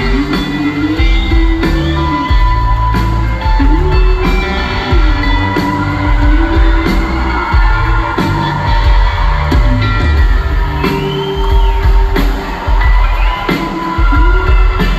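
Live rock band playing an instrumental passage: electric guitars over bass and drums, with held and bending guitar notes.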